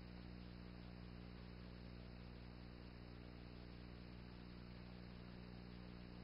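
Near silence: a steady low electrical hum with faint hiss, the noise floor of a silent home-movie transfer.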